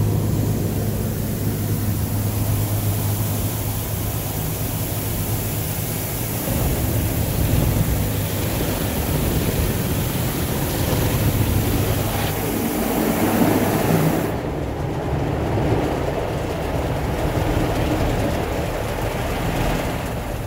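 Tunnel car wash heard from inside a van's cab: water spray hissing and drumming on the body and windshield while soft-cloth brushes and hanging cloth strips slap and scrub across it, over a low hum for the first several seconds. The high spray hiss cuts off about fourteen seconds in, leaving the duller scrubbing of the brushes.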